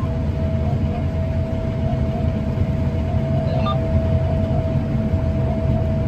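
Steady low rumble of a John Deere combine heard from inside its cab as the machine turns itself on the headland under automatic turn control. A thin steady tone comes in at the start and holds over the rumble.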